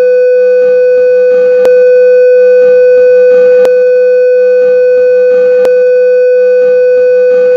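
A long, loud, steady electronic bleep tone dubbed over the footage, the kind used to blank out speech. It cuts in and out abruptly, with a faint click about every two seconds.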